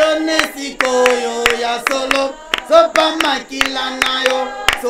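A group of women and children singing a worship song together, clapping their hands in a regular rhythm along with it.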